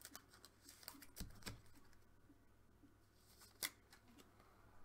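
Near silence, broken by a few faint clicks and rustles of handling, with one sharper click about three and a half seconds in.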